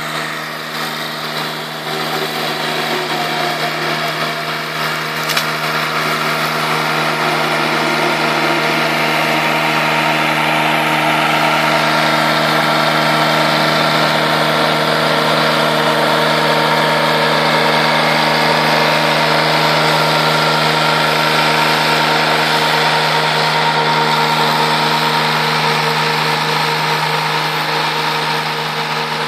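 McConnell Robocut remote-controlled slope mower running steadily as it mows grass with its flail head, a constant engine hum. A single sharp click about five seconds in.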